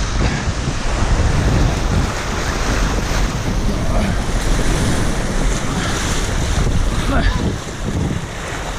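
Rushing whitewater of a river rapid, a steady loud roar, with wind buffeting the microphone.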